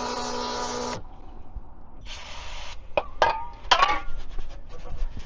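Battery-powered electric oil change pump running with a steady whine and hum, then cutting off sharply about a second in. A short hiss, a few squeaks and light clicks follow.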